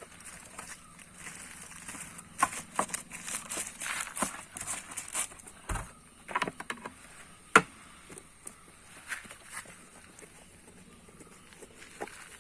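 Irregular clicks and knocks of objects being handled, with a dull thump near the middle and one sharp click a little after it; no engine running.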